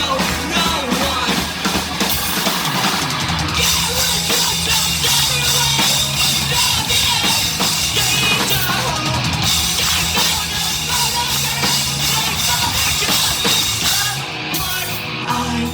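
Live post-hardcore rock band playing an instrumental passage: heavy drum kit with cymbals and bass drum, distorted guitars and bass guitar, loud and dense in a club recording.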